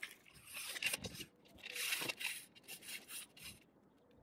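Shoes scuffing and grinding on gritty asphalt roof shingles as a person walks across the roof: two longer scrapes, then a few shorter steps.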